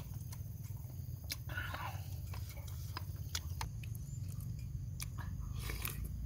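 A person chewing cooked octopus close to the microphone: scattered wet mouth clicks and lip smacks, with a couple of short breathy bursts, over a steady low rumble.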